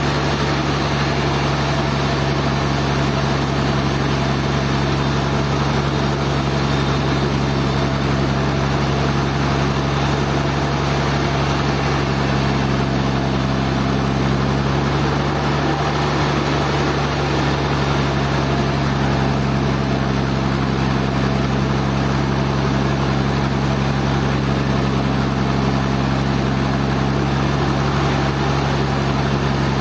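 Sawmill machinery running steadily, a constant engine-like hum with no change in pitch or level.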